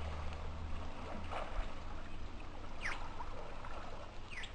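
River water rushing steadily, with a low rumble underneath. Two brief high rising squeaks sound, about three seconds in and again near the end.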